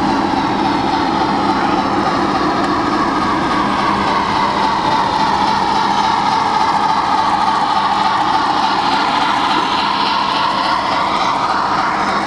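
HO-scale Bachmann Spectrum Milwaukee Road 10-wheeler model steam locomotive running, its Tsunami sound decoder playing steam locomotive sounds through the model's small speaker, over a steady low hum.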